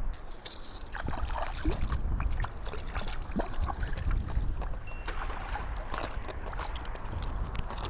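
Water sloshing and splashing in shallow water, with wind rumbling on the microphone and scattered small knocks and splashes.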